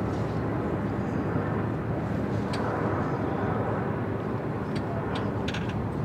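Steady low outdoor rumble and hiss, with a few brief faint high chirps or clicks about halfway through and near the end.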